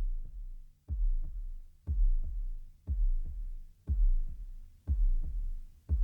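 Background music with a deep, heartbeat-like electronic bass beat: a double thump about once a second.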